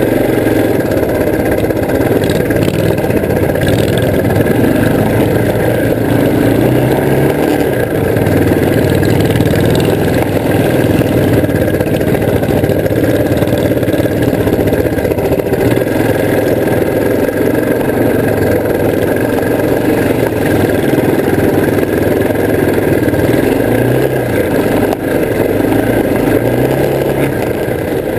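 The engine of a 1970 Hustler six-wheel ATV running steadily and loudly while driving, its pitch rising and falling a little as the throttle changes.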